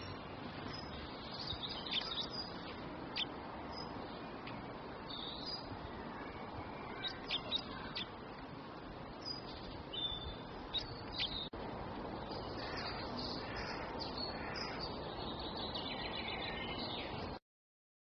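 Small songbirds chirping in short, high calls scattered over a steady background hiss; the sound cuts off suddenly near the end.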